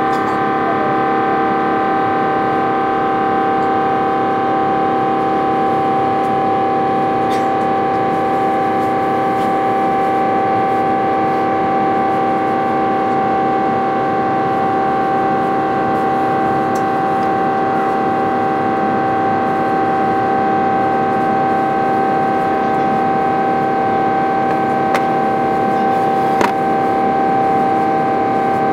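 Airbus A350's Rolls-Royce Trent XWB turbofan engines in the climb after takeoff, heard inside the cabin: a loud steady drone carrying a strong, unchanging whine of fan tones.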